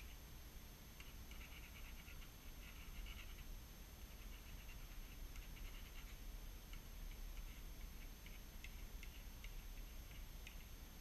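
Faint scratching and light clicking of small steel lathe half-nut parts being handled and worked with a hand tool. The sound comes in quick clusters through the first half, then as scattered single ticks.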